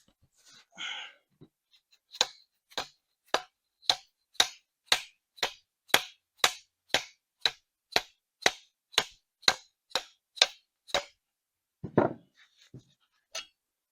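A steady series of about eighteen sharp metal taps, about two a second, as the tight worm shaft of a Waterloo power steering valve is worked loose from its actuating sleeve. The taps stop about 11 seconds in, followed by one duller, heavier knock.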